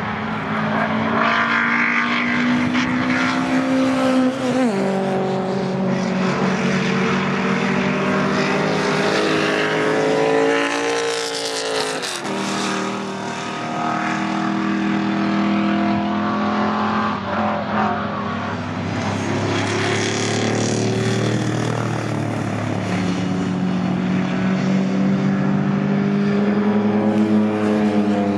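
Historic GT and touring race cars running past on the circuit, their engines loud and continuous. The engine pitch climbs and then drops sharply several times, most clearly about four and twelve seconds in.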